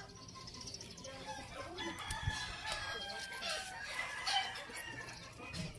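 Faint chickens clucking and a rooster crowing, scattered calls throughout, with light rustling and snapping of pechay leaves being picked by hand.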